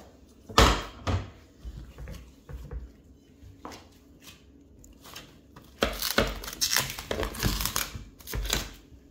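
Kitchen handling sounds as dough is moved into an oiled glass Pyrex dish: two sharp knocks about a second in, then a burst of rustling and knocking near the end.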